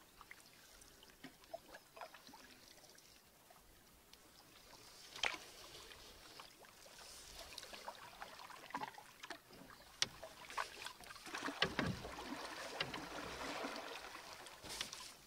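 Canoe paddles dipping and pulling through calm lake water, with splashing and drips that grow louder in the second half, and scattered sharp ticks and knocks.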